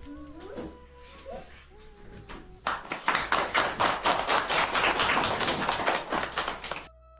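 Small group of people clapping by hand, starting about two and a half seconds in and running for about four seconds before cutting off suddenly. Before it, soft background music with held tones and a faint voice.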